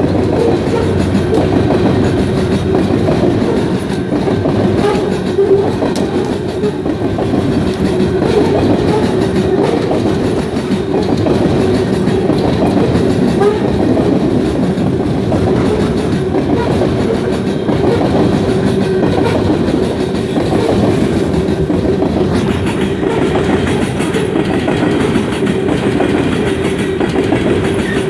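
CP Rail coal train's coal cars rolling past, a steady rumble and clatter of steel wheels on the rails.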